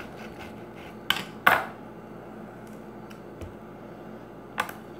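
Kitchen knife cutting an orange wedge on a tiled countertop, the blade and knife clacking against the tile: three sharp knocks, the loudest about a second and a half in.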